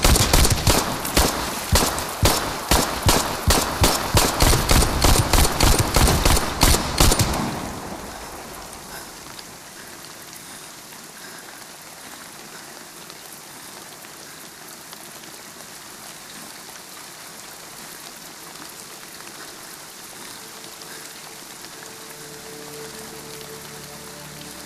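A pistol fired over and over in rapid succession, about four shots a second, for some seven seconds, over heavy steady rain. Once the shots stop only the rain goes on, and low music tones come in near the end.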